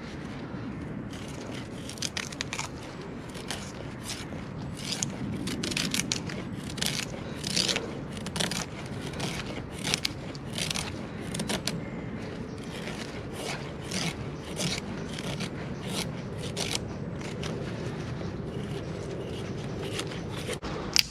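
Repeated short, sharp scraping strokes, roughly two a second, with a brief pause partway and fewer strokes near the end, where one sharp click stands out.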